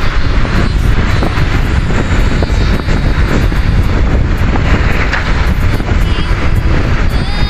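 Heavy truck engine and road noise running loud and steady, with wind buffeting the microphone; a few faint high horn tones come in near the end.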